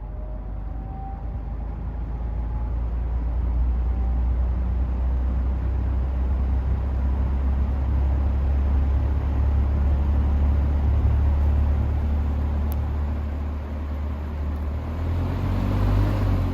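Vintage Air King PL20P box fan with a General Electric motor starting up on low speed: a faint motor hum rises in pitch early on while the rush of air from the blades builds over the first few seconds into a steady low rumble. Near the end the air noise swells briefly.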